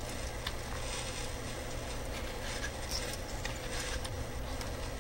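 Robot's small electric motors and gears running faintly with scattered light ticks as it moves, over a steady low hum.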